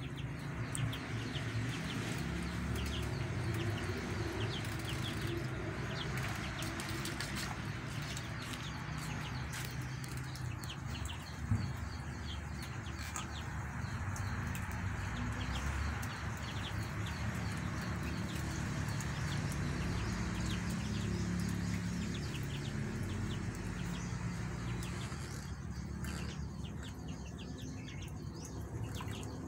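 A brood of ducklings and ducks feeding: steady scuffling and pecking with scattered small peeps, and one sharp knock about eleven seconds in.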